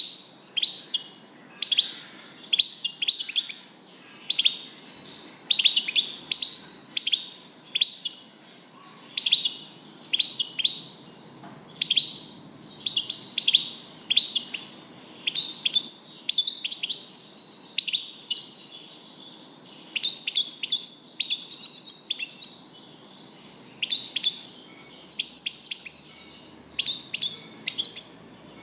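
European goldfinch singing: a long run of quick, high, twittering phrases about a second apart, with short gaps between them, stopping near the end.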